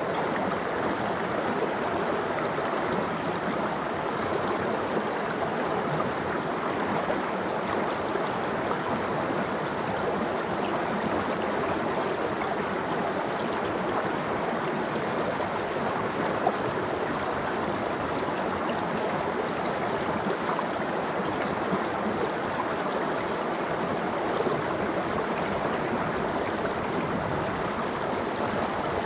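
Cold water of an icy valley stream running steadily, an even, continuous rush of flowing water.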